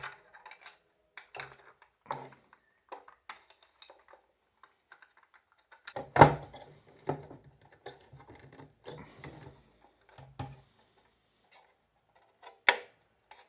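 Hard plastic clicking and knocking as a 3D-printed handle is worked into the hub of a plastic filament spool and the spool is handled. The clicks are scattered, with a sharper knock about six seconds in and another near the end.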